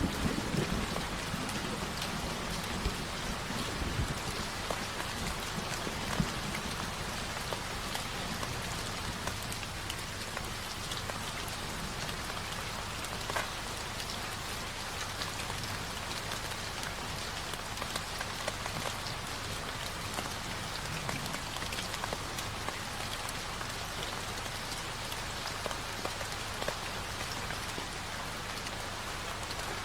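Steady rain falling on a surface, an even hiss with scattered faint drop ticks, from a rain-ambience recording laid over the video.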